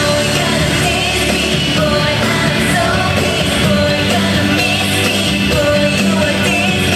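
A K-pop song played loud over an arena sound system, with sung vocals over a dense pop backing track.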